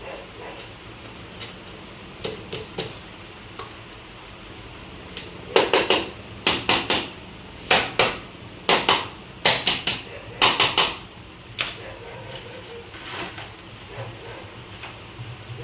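Hammer blows on metal engine parts during moped engine assembly: a few light taps, then from about five seconds in a run of sharp strikes in quick pairs and threes lasting about six seconds, then scattered lighter taps.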